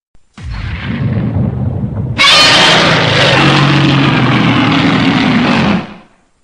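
Film sound effect: a low rumbling blast that starts about half a second in, jumps abruptly louder into a dense, steady rushing noise over a low drone about two seconds in, and fades out near the end.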